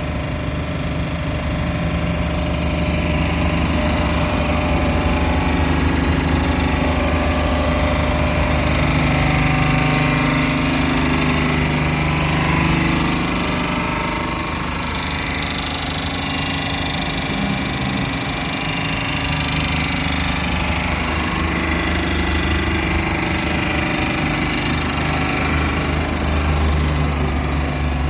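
Caterpillar 914G wheel loader's diesel engine running steadily, its pitch and loudness shifting a few times as the engine speed changes.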